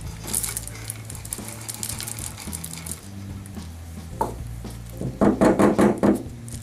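Small white scrubber media pellets pouring from a plastic cup into a glass canister packed with ceramic saddles, a crackling patter for about the first three seconds. A knock follows as the cup is set on the table, and near the end a quick run of loud knocks and rattles as the filled canister is handled.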